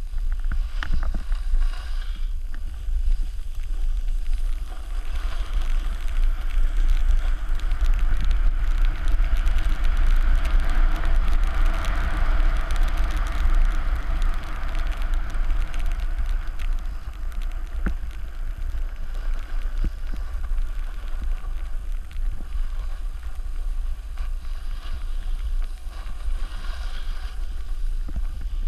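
Wind buffeting a pole-mounted GoPro Hero 3's microphone as a rider slides down a powder slope, with a steady hiss of snow under the rider that grows louder through the middle stretch.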